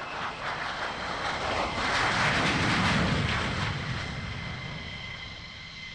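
Lockheed Martin F-35A's single F135 turbofan running as the jet passes low over the runway. The jet noise swells to its loudest two to three seconds in, then eases, leaving a steady high whine.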